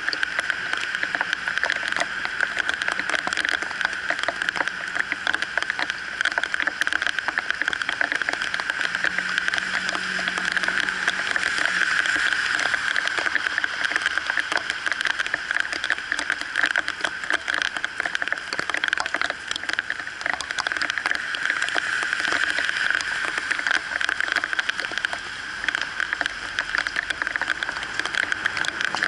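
Heavy rain falling steadily on a wet road, a dense close patter of drops, with vehicles swishing past through the water on the road.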